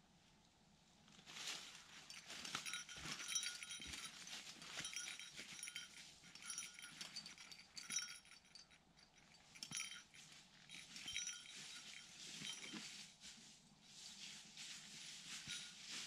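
Footsteps of a hiker and a Shetland sheepdog crunching through dry fallen leaves, starting about a second in, with light metallic jingling and clinking in short bursts.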